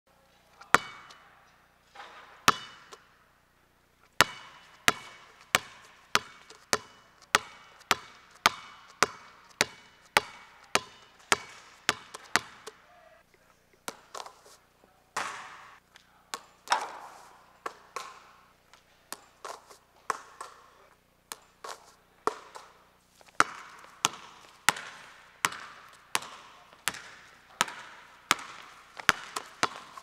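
A basketball bouncing on a hardwood gym floor, echoing in the hall. It is dribbled in a steady rhythm of a little under two bounces a second, with a few longer, noisier hits around the middle and a fresh run of bounces near the end.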